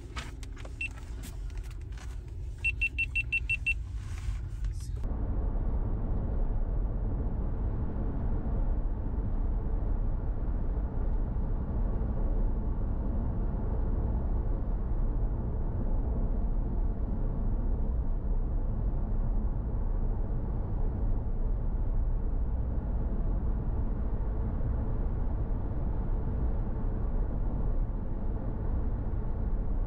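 A short, rapid run of high beeps about three seconds in, then a steady low rumble of road and engine noise from a car being driven, heard from inside.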